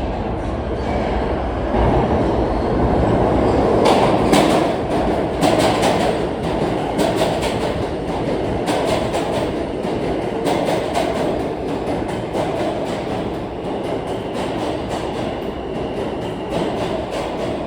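R160 subway train rolling along the track, its wheels clacking rapidly over rail joints; it grows louder about two seconds in.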